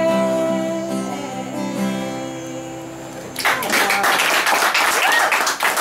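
Acoustic guitar and a woman's singing: a long held sung note ends about a second in and the last strummed chord rings out and fades. About three and a half seconds in, the listeners break into clapping and voices.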